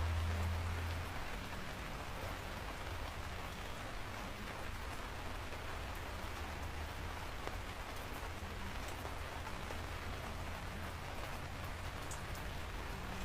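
Steady rain falling, an even hiss of drops, with a low rumble underneath that is strongest in the first second and then settles.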